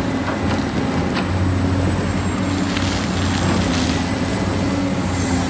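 Excavator's diesel engine running steadily with a low, even drone and a faint high whine above it.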